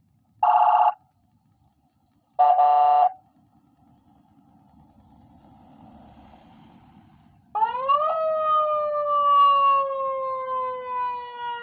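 Senken 60-watt siren module sounding through its speaker: two short horn blasts, then about seven and a half seconds in a siren starts, sweeping up quickly and then falling slowly in pitch. Its sound is called scary, "ngeri banget".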